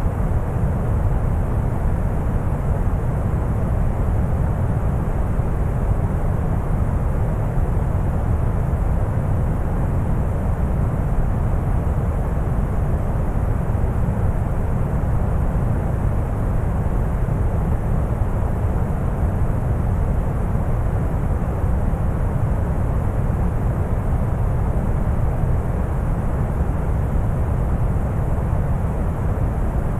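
Deep brown noise: a steady, even rumbling hiss weighted to the low end, unchanging throughout.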